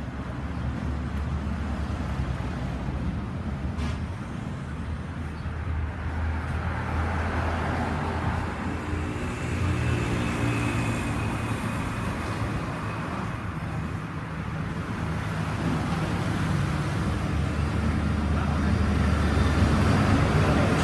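A motor vehicle's engine running with road traffic noise, a low steady hum that grows louder over the last few seconds.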